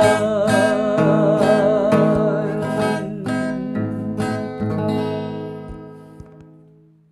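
Acoustic guitar strummed in a slow, even rhythm, about two strums a second, under a man's sung final note held with vibrato for the first three seconds. The closing chords then ring out and fade away.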